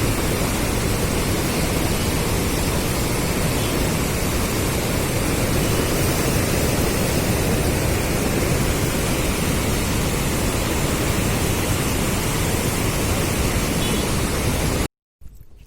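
Steady, loud rushing roar of river floodwater, even and unbroken, cutting off abruptly near the end.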